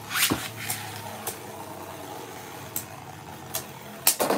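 Beyblade Burst tops spinning in a plastic stadium with a steady whir, set off by a quick ripping launch just after the start, then clacking together in a few sharp hits, the loudest near the end.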